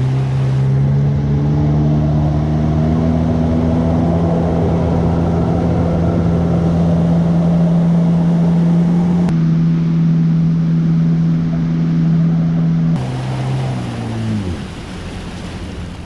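Jet ski engine running at a steady speed, then throttling back about thirteen seconds in, its pitch falling as it slows down.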